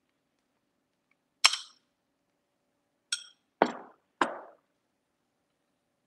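A metal spoon clinking and knocking against a ceramic bowl four times: one sharp clink about a second and a half in, then three more in quick succession around three to four seconds in, one of them with a brief ringing tone.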